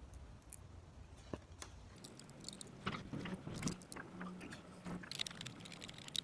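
Faint, irregular small clicks and scrapes of hands fitting a bolt back into a motorcycle turn-signal mount, handling the metal and plastic parts.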